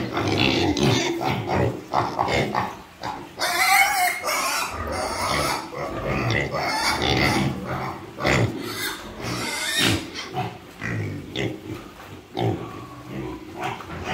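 A group of Large White, Camborough and TN70 piglets grunting constantly and irregularly, with two louder, higher-pitched cries, one about four seconds in and one near ten seconds.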